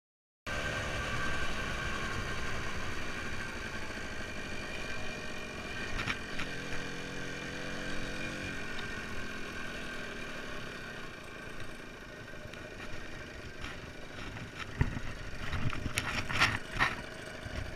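Garelli Rally Sport two-stroke moped engine running under way with wind rushing over the handlebar-mounted camera, its pitch falling as it slows. Several sharp knocks and clatters come near the end.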